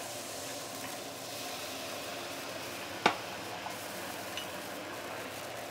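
Chicken stock poured into a hot wok of oil-sautéed herbs and spices, sizzling steadily as it hits the pan. A single sharp knock about three seconds in.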